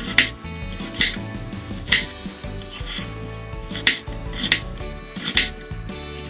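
Chef's knife slicing through an onion and knocking on a wooden cutting board, about six sharp cuts roughly a second apart, over background music.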